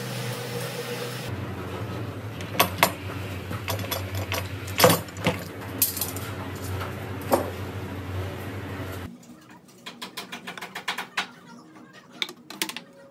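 Steel bar clamps being worked on a glued wooden frame: sharp metal clicks and clanks from the sliding jaws and screw handles, the loudest a little past the middle. Toward the end it turns quieter, with a pencil scratching marking lines on wooden boards.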